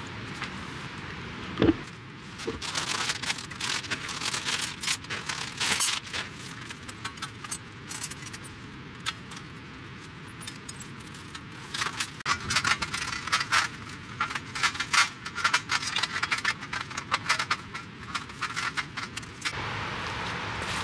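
Thin metal rods and plates of a folding stainless camp fire stand clinking and rattling as they are handled and fitted together, many short clicks in quick runs. A single heavier knock about two seconds in.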